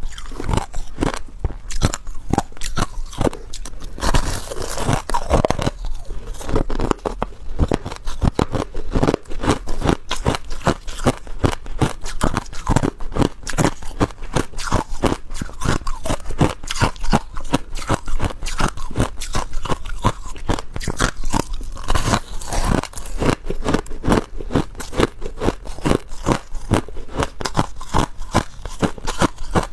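Crushed ice, pressed into a lump, being bitten and chewed: rapid, unbroken crunching.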